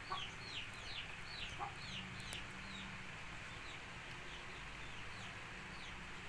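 A small bird peeping: short, high, falling chirps, about two or three a second, that stop about three seconds in.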